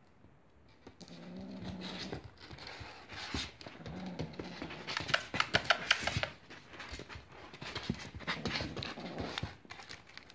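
Bengal kitten growling low while holding a feather wand toy in its mouth: possessive play growling over prey. About halfway through comes a quick run of sharp clicks and scrabbling on the wooden floor, the loudest part.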